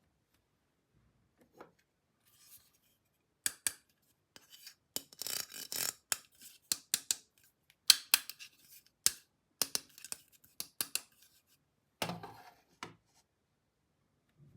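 Small hard plastic toy parts being handled: irregular sharp clicks and taps with short scraping rubs, a run of them from about three seconds in.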